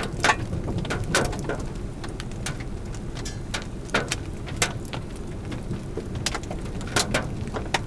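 Scattered heavy raindrops striking hard surfaces in irregular sharp taps, over a steady low rumble.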